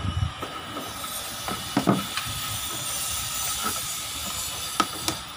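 A few light knocks of a digital multimeter and its test leads being set down on a plywood worktable, over a steady background hiss.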